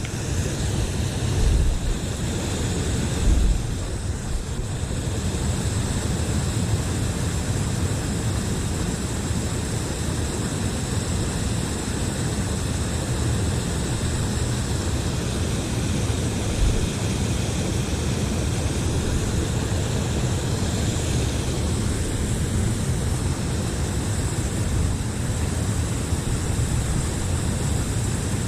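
Steady rushing noise of a flowing river, with a heavy low rumble and a few brief low thumps.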